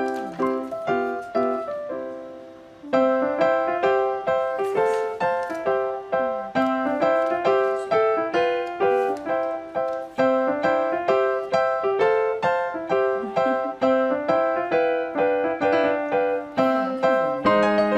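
Background music: a quick piano tune of short struck notes. It fades away and starts again about three seconds in.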